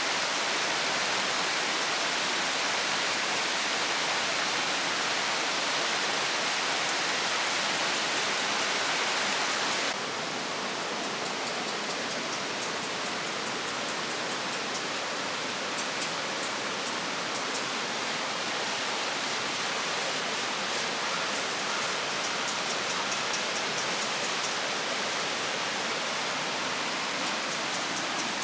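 Wood fire burning in a small fire pit: a steady rushing hiss that drops in level abruptly about ten seconds in, after which faint scattered crackles come through.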